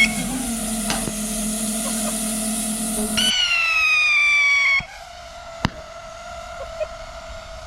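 Whistling fireworks screeching: a hiss with a low hum, then a shrill whistle that falls in pitch for about a second and a half before cutting off. A single sharp crack follows about a second later.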